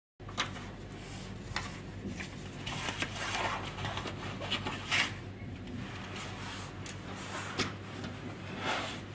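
A low, steady hum with scattered soft rustles and light clicks, like handling or clothing noise, coming in just after the sound cuts back in.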